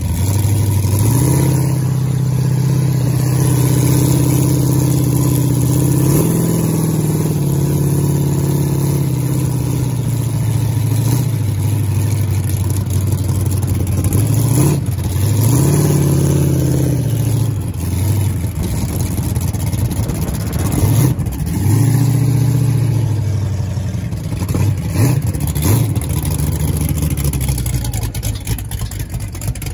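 Ride truck's engine running under way, its note climbing and dropping several times as the driver accelerates and eases off, heard from the passenger seat of the open cage.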